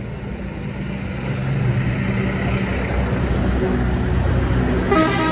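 Tractor diesel engine running, growing louder over the first couple of seconds and then holding steady. A brief pitched sound comes near the end.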